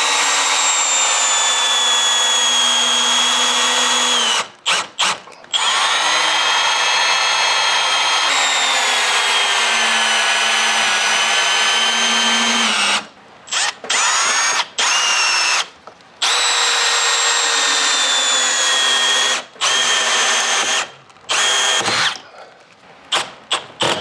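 Power drill driving 6-inch Simpson Strong-Tie truss screws into wood rafters: long steady runs of motor whine whose pitch falls slowly, stopping and restarting several times, with short bursts near the end.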